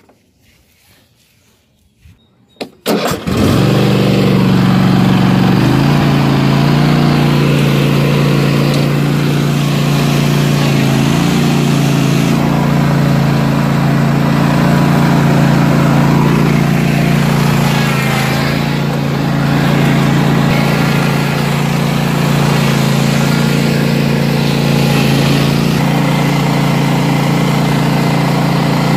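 Craftsman T7800 lawn tractor engine cranking briefly and catching about three seconds in, then running steadily. The engine note shifts once about six seconds in and holds steady after that.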